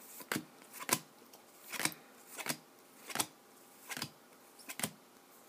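2014 Bowman Chrome football cards being flicked one at a time from the front of a hand-held stack to the back. Each card makes a short sharp snap, about seven of them at a steady pace, roughly one every 0.7 seconds.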